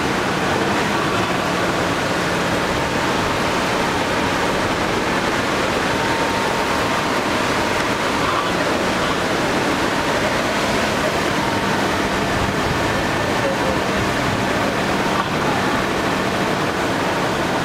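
Fast-flowing muddy floodwater rushing in a steady, unbroken noise.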